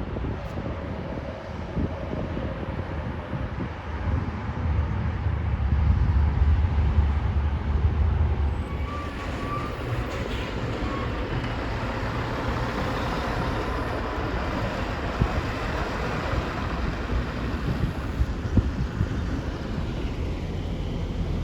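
Heavy diesel machinery running steadily, with a low rumble that eases after about eight seconds and a few sharp knocks later on.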